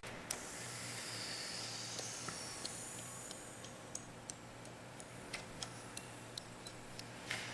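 Faint, irregular light clicks and ticks over a low steady hum and a soft hiss.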